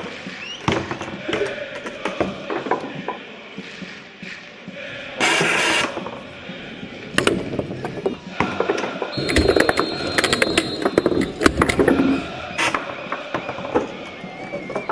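Table-football game in play: the ball clacking off plastic figures and the table walls, with rods and handles rattling in a rapid, uneven run of clicks that is busiest in the second half. A loud hiss-like burst lasts just under a second about five seconds in.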